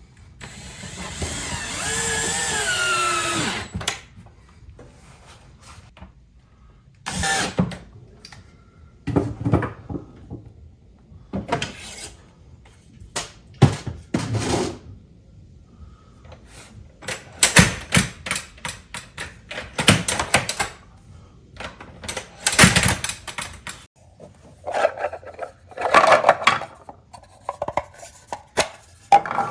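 Power drill running on wood: one run of about three seconds near the start with its pitch wavering, then a long string of short on-and-off bursts.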